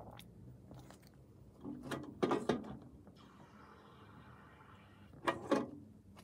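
Hands working on a small model steam traction engine: light metal clicks and knocks, loudest in a cluster about two seconds in and a pair near the end, with a soft hiss in between.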